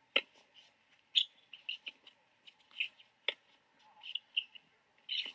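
Tennis rally on a hard court: a sharp knock of a racket striking the ball just after the start, another about three seconds in, among many short high chirps and squeaks.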